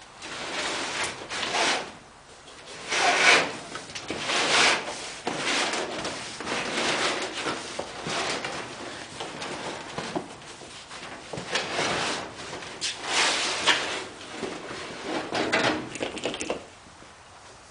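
A flexible rubber fuel bladder being dragged out of an aircraft wing bay, rubbing and scraping against the aluminium structure in a series of uneven pulls. The noise stops shortly before the end.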